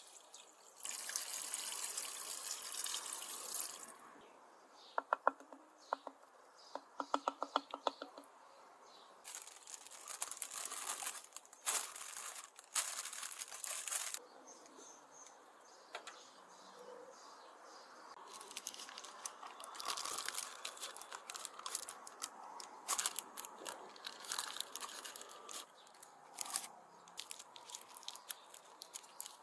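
Liquid poured from a clay bowl into a glazed earthenware pot, then a run of quick ticks. After that, paper crinkles in irregular bursts as it is pressed over the pot's mouth and tied down with string.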